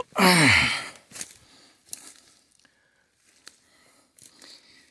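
Footsteps through cut branches and brush, with dry twigs crackling and snapping in a few scattered sharp clicks.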